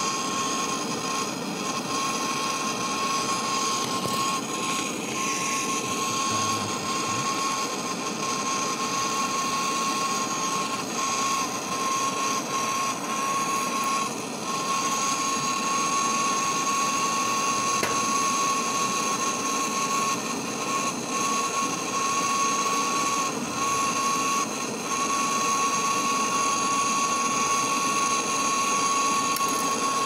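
Brazing torch flame hissing steadily with a steady high whistle, held on the copper charging-pipe joint of a refrigerator compressor while the pipe is brazed on.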